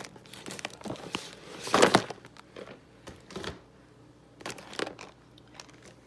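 Clear plastic packets and paper sleeves of rubber stamps and metal dies crinkling and rustling as they are flipped through, in several short bursts, the loudest about two seconds in.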